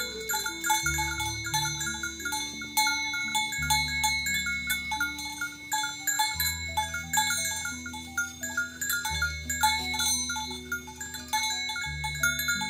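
Background music: a light, plinking chime-like melody over sustained low bass notes that change every few seconds.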